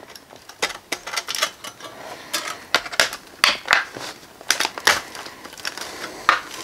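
Thin tin-can sheet metal scraping and clicking as a cut fuel shelf is pushed and worked into the slits of a tin-can rocket stove's fuel magazine: an irregular run of sharp metallic scrapes and clicks.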